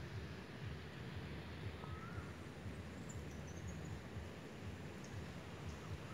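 Faint bird chirps: one short rising whistle about two seconds in, then a few high, thin chirps about a second later, over a steady low rumble on the microphone.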